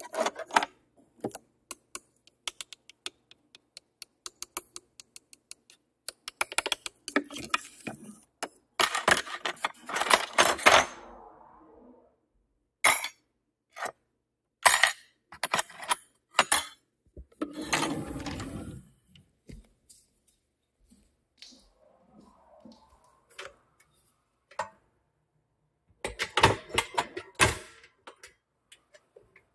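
Kitchen dishes and utensils being handled: irregular sharp clinks, taps and clatters. There are dense rattling runs about 7 to 11 seconds in and again near the end, and a longer, deeper noisy sound about 18 seconds in.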